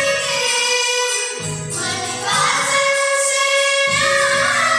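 Four children singing together to a Yamaha electronic keyboard accompaniment, its low chords changing about every two and a half seconds.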